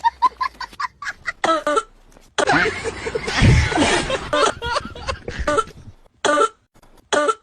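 A person coughing over and over: quick short coughs at first, a longer hacking fit in the middle, then single coughs about a second apart near the end.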